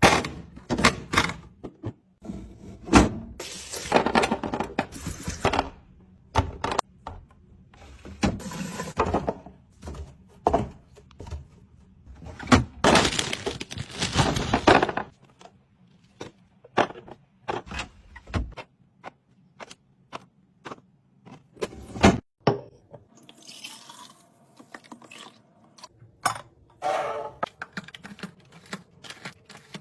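Household items being handled and set down while restocking: a run of knocks, clinks and taps, with several longer noisy bursts of a second or two in the first half.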